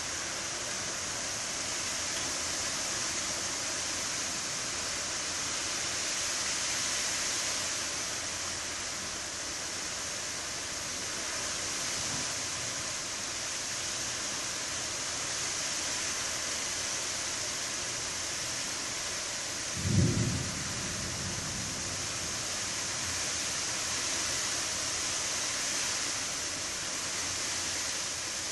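Steady hiss of rain and strong wind from a thunderstorm's gust front. About twenty seconds in, a single short, low boom stands out as the loudest sound.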